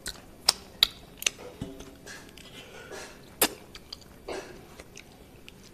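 Wet mouth smacks and clicks from fingers being licked and sucked clean of curry: several sharp, separate smacks, most in the first second and a half and one more a little past three seconds.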